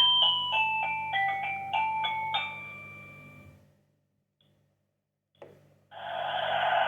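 Sony Ericsson W900i preloaded ringtone: a melody of short chime-like notes, about two a second, that ends and fades out after about three and a half seconds. After a pause and a click, a loud, steady, hiss-like tone starts near the end.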